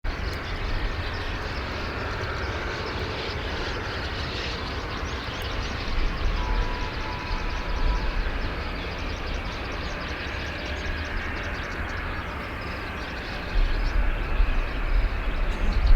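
Boeing 737-800's CFM56 jet engines running at a distance, a steady rush. A low rumble underneath gets louder about 13 seconds in.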